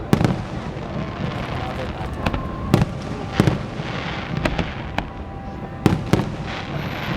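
Aerial fireworks bursting: about half a dozen loud, sharp bangs at irregular intervals, some in quick pairs, with smaller cracks between them.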